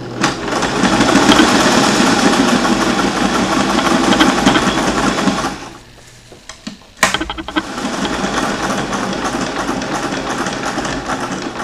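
Singer sewing machine running a straight stitch in two runs of about five seconds each. It stops for about a second and a half in the middle and starts again with a sharp click.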